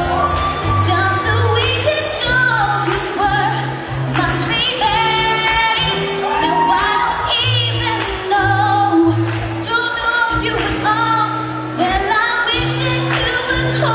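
A woman singing a slow R&B ballad over backing music with steady low bass notes, her melody gliding and wavering between long held notes.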